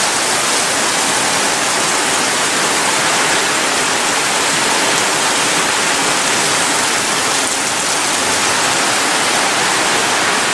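Heavy rain pouring down, a steady dense hiss that doesn't let up.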